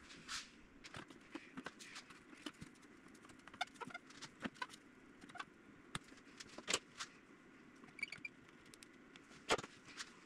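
Scattered light clicks and wooden taps as thin light-ply fuselage formers and small clamps are handled on a glass-topped workbench, with one sharper knock near the end.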